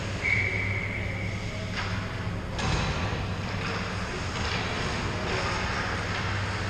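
Indoor ice hockey rink during play: a steady low hum under scraping swishes of skates on the ice. Near the start a steady high tone is held for about a second and a half.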